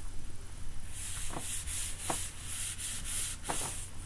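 Dry-erase eraser wiping a whiteboard: a quick series of about nine short rubbing strokes, starting about a second in.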